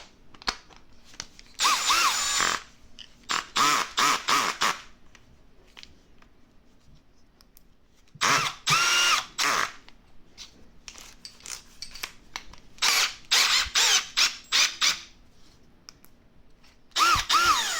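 Milwaukee M12 Fuel Installation Drill/Driver's brushless motor run in a series of trigger pulls: some single runs of about a second and some quick clusters of short blips, each a whine that rises as the motor spins up and falls as it stops.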